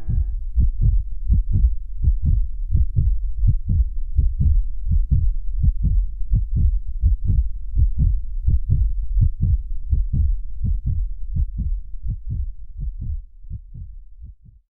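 Heartbeat sound effect: steady low double thumps, a little over one beat a second, growing fainter near the end and then stopping.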